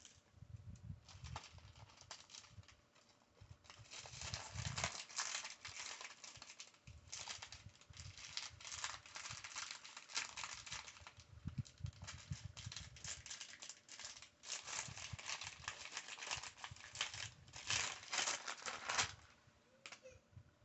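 Small plastic building bricks clicking and rattling against each other, with a clear plastic parts bag crinkling, as loose pieces are sorted through by hand. The sound comes in uneven bursts.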